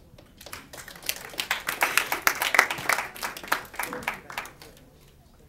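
Small audience applauding by hand. The clapping builds over the first two seconds, peaks, and dies away about four and a half seconds in.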